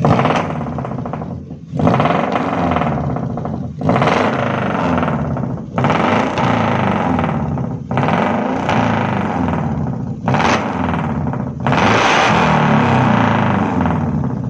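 Suzuki New Carry pickup's 1.5-litre four-cylinder engine revved through a new racing exhaust (432 header and Spoonsport muffler) in repeated throttle blips, about seven, roughly every two seconds, each dropping back before the next. The exhaust is built for an uneven, lopey note, called a 'limping Harley' sound.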